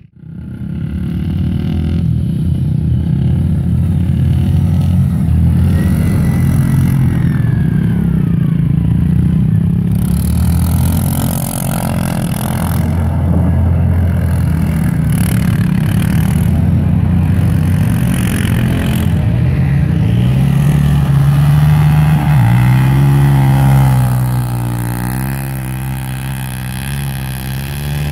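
ATV (quad bike) engines running and revving as they ride on snow, the pitch rising and falling with the throttle. The sound fades in from silence at the very start.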